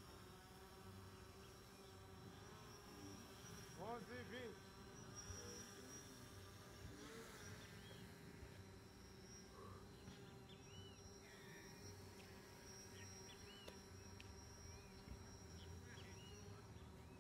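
Near silence: faint outdoor background with a steady thin buzz, a brief faint distant voice or call about four seconds in, and a few short faint chirps later on.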